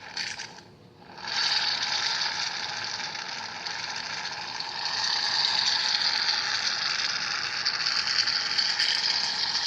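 Aerosol can of shaving foam dispensing: a brief burst at the start, then a loud, continuous hiss of foam spraying from about a second in.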